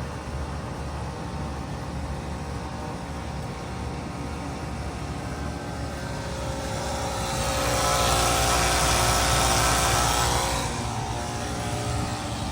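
2016 Bard 4-ton wall-hung heat pump running with a steady hum. About halfway through, a loud hiss swells up for about four seconds and fades away.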